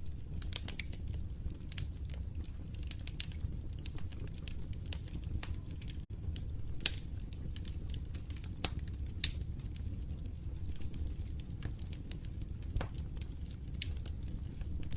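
Wood fire crackling in a fireplace: irregular sharp pops and snaps over a steady low rumble. The sound cuts out for an instant about six seconds in.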